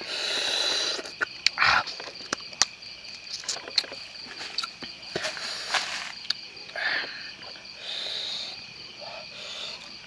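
Steady chirring of night insects, with scattered sharp clicks and short noisy bursts from grilled fish being picked apart by hand and eaten.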